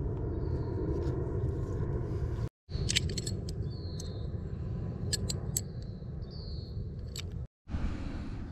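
Light metallic clicks of aluminium tent pegs and cord toggles knocking together as they are handled, a few sharp ones at a time, over a steady low outdoor rumble. The sound cuts out completely twice for an instant.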